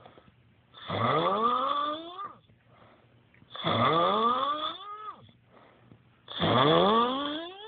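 Snoring: three long snores about three seconds apart. Each is a whistling, pitched snore that climbs steadily in pitch for over a second, then drops off sharply.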